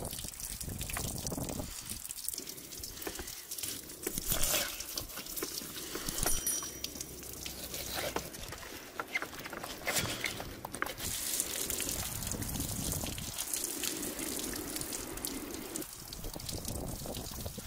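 Water trickling and pouring from a hose over a large fish as it is washed on a table, with irregular knife scrapes and wet handling knocks against its skin.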